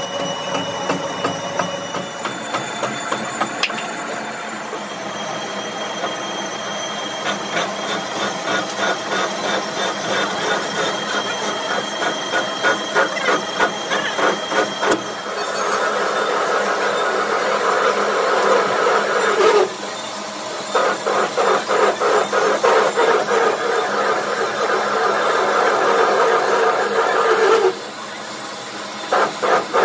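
Metal lathe turning a rough steel bar in a four-jaw chuck, with the tool cutting into the spinning bar: a steady machine noise pulsing about twice a second. A louder cutting noise sets in about halfway, breaks off sharply twice and starts again.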